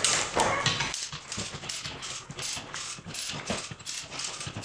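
Hand-operated cable come-along being pumped to hoist a 450-pound load: a steady run of ratchet-and-pawl clicks, about five a second.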